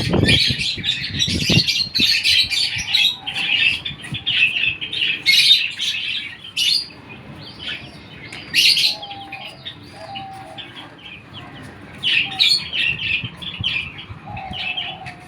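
A flock of Silkie chickens chirping busily with high, rapid calls, with a few lower, short calls in between. There are some low thumps in the first second or two.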